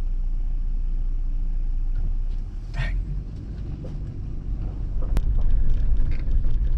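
Steady low rumble of a Toyota SUV driving, heard from inside the cab. It gets louder about two-thirds of the way through, with scattered light clicks and rattles.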